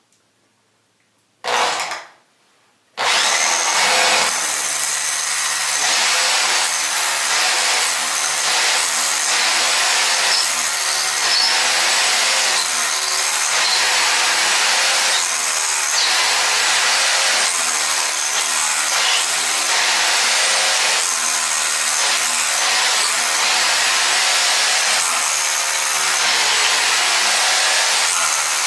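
Power drill with a long masonry bit boring into a poured concrete wall through a pre-drilled wooden upright, making the pilot hole for a Tapcon concrete screw. A brief burst about one and a half seconds in, then steady continuous drilling from about three seconds on.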